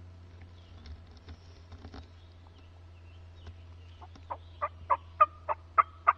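A run of about seven loud turkey yelps, evenly spaced at about three a second, starting some four seconds in. Before them, faint crackles.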